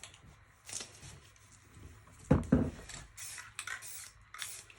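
Aerosol spray-paint cans being handled: two knocks a little past halfway through, then several short spray hisses.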